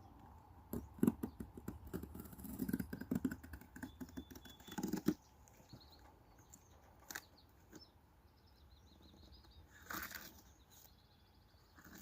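Scraping, rustling and knocking of a cardboard fridge box being cut open with a kitchen knife and handled, busiest in the first five seconds, with a brief scuffle about ten seconds in. A few bird chirps in the background.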